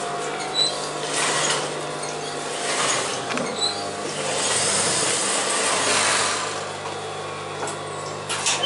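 Industrial sewing machines in a workroom: a steady motor hum with bursts of whirring stitching as the machines are run, and a few sharp clicks near the end.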